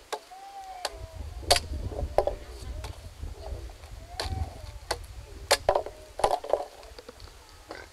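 A long knife chopping through a green sugarcane stalk: about half a dozen sharp chops at uneven intervals, the loudest about a second and a half in and again near five and a half seconds.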